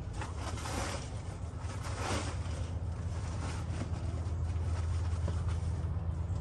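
A steady low mechanical hum that grows a little louder after the middle, with brief rustling noises about half a second and two seconds in.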